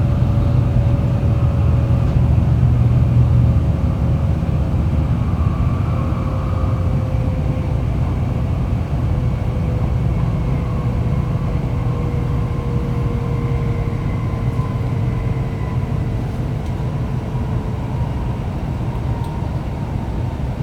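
Shinkansen Kodama train running, heard from inside the passenger car: a steady low rumble with a faint tone that slowly falls in pitch as the train slows toward its station stop.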